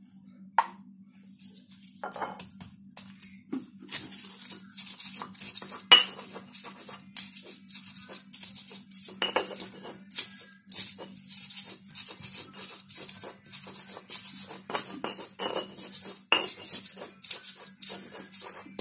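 Stone pestle grinding and pounding shallots, garlic, candlenuts and chillies in a stone mortar (Indonesian cobek and ulekan): stone scraping and knocking on stone in quick repeated strokes from about two seconds in, after a single knock near the start.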